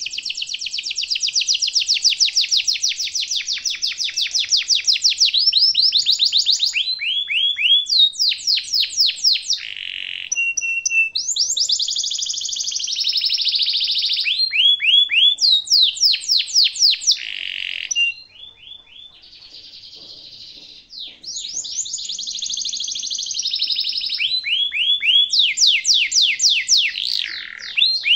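Domestic canary singing: long, fast rolling trills alternating with runs of quick, repeated downward-sweeping notes, the song dropping quieter for a few seconds past the middle.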